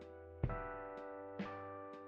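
Background music: sustained chords with a new note struck about once a second and a low thump about half a second in.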